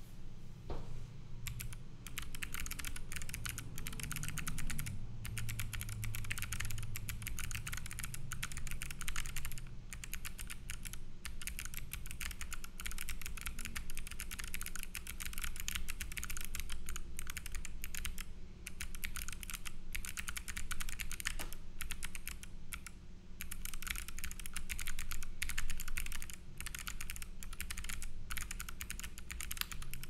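Fast, continuous typing on a 65% custom mechanical keyboard with Kailh Box Jade clicky switches, an aluminium plate and PBT keycaps: a dense stream of crisp clicks that starts about a second or two in, with short pauses now and then.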